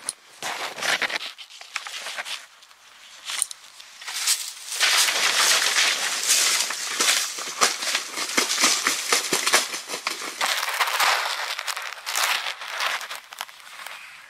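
Mortally wounded wild turkey gobbler flopping on the ground after a broadhead head shot, its wings beating against dry leaves and grass. The crackling rustle comes in short bursts near the start, then runs almost without a break from about four seconds in until shortly before the end.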